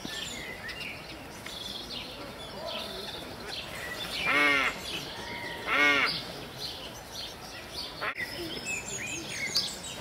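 Mixed bird calls in an aviary: many scattered short chirps and tweets, with two louder calls, each a quick rattle of notes, about four and six seconds in.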